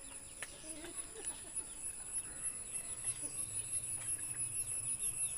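Chickens clucking faintly now and then, over a steady high-pitched background tone, with a few light knocks in the first second.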